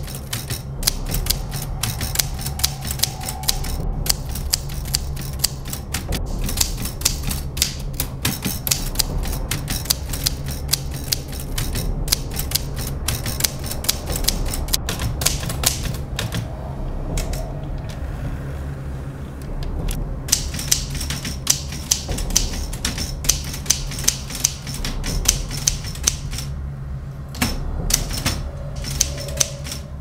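Manual portable typewriter being typed on: quick, irregular key strikes of the typebars hitting the paper, with a couple of short pauses, over a low steady hum.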